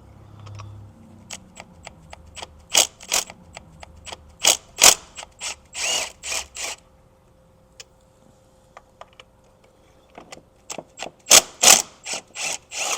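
Ratchet wrench and spark plug socket clicking in two bouts, with a pause of a few seconds between them, as spark plugs are loosened and backed out of the engine.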